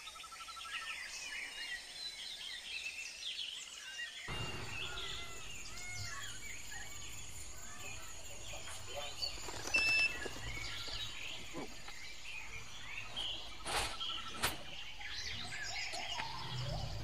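Many small birds chirping and twittering in quick, overlapping calls, with a few sharp clicks in the second half.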